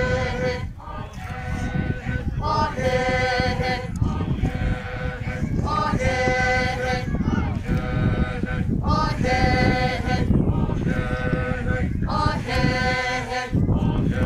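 A group of men and women chanting a traditional song together, in held, wavering notes sung in short phrases broken by brief pauses for breath, over a steady low rumble.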